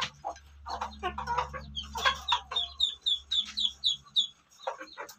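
Caged laying hens clucking and pecking feed from a clay bowl, with scattered sharp pecking clicks. About halfway through comes a quick run of about seven short high chirps.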